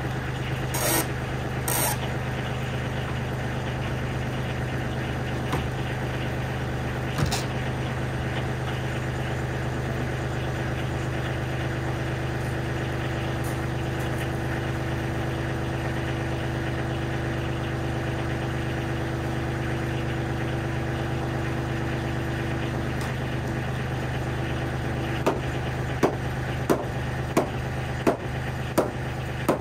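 Diesel tractor engine idling steadily. Near the end, a hammer strikes the wall framing at the bottom plate about seven times in an even rhythm.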